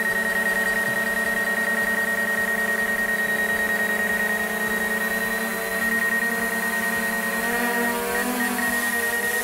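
DJI Mavic Air 2 quadcopter's four motors and propellers whining steadily as it lifts off and hovers, on a test flight with a newly replaced left front motor. About seven seconds in, the pitch begins to waver as the motors adjust.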